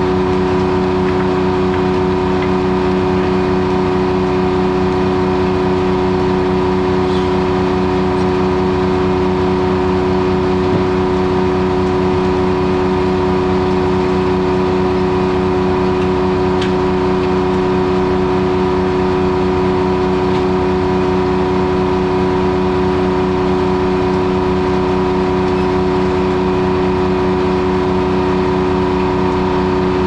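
Corley circle sawmill running with its head saw spinning free, not in the wood: a steady mechanical drone with several held tones that does not change.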